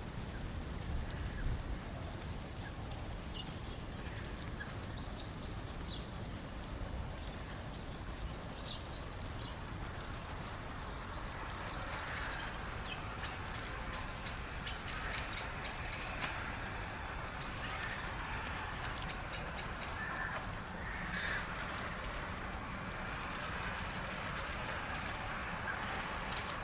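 Wild birds calling over a steady background: two runs of about five short, repeated calls about halfway through and again a few seconds later.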